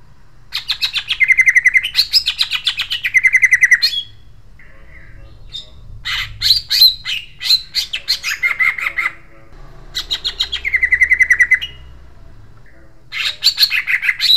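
Male cucak ijo (green leafbird) singing its harsh, sharp rolling song: four loud phrases of fast repeated notes and trills, each a couple of seconds long, separated by short pauses.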